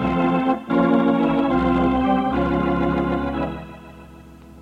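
Organ music bridge marking a scene change in a radio drama: sustained chords that shift twice, then fade out about three and a half seconds in.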